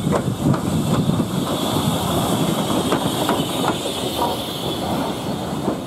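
LMS 3F 'Jinty' 0-6-0T steam tank locomotive on the move, with a steady loud hiss of steam and irregular knocks and clatter from the wheels on the track.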